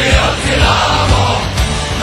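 A rock song playing in an instrumental stretch between sung lines, with a steady drum beat of about two hits a second.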